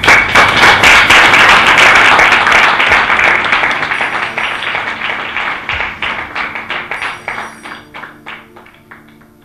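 Audience applause, loud and dense at first, then fading and thinning out to scattered single claps before dying away.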